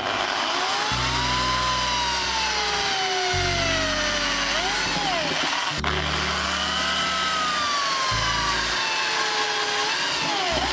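Electric hand drill running and boring holes in a curved brake shoe, its motor whine climbing and then sinking slowly in pitch as the bit bites, twice over.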